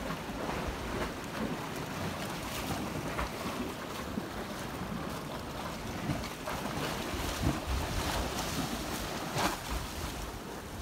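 Wind buffeting the microphone in uneven gusts over the steady wash of the sea against a rocky shore.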